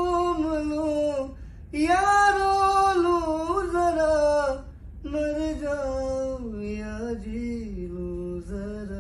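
A man singing a slow Urdu/Hindi love song unaccompanied, in a high register, with long held notes and vibrato. The song comes in three phrases, with short breaths about a second and a half in and just before the five-second mark, and the melody steps down in pitch over the last phrase.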